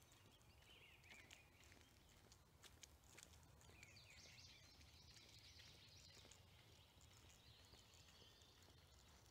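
Near silence outdoors, with faint birds singing and light footsteps on a paved path.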